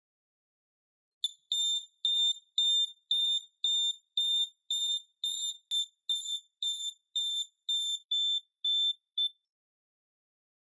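Turn-signal buzzer beeping about twice a second with the flashing indicators, a high-pitched electronic beep that starts about a second in and stops about nine seconds in.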